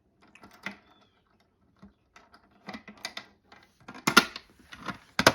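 Push-in, pull-down fire alarm pull station being reset with its key: a run of small mechanical clicks and clacks from the lock and handle, with two louder snaps near the end.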